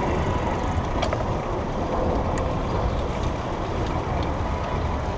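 Busy city street traffic heard from a moving bicycle: a steady low rumble of cars and taxis around the rider, with a few faint ticks.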